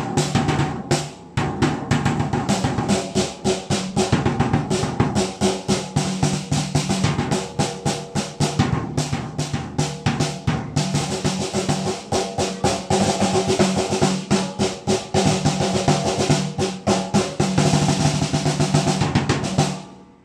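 Snare drum and tom struck with wooden drumsticks in fast, continuous fills and rolls, with a short break about a second in. The playing stops near the end.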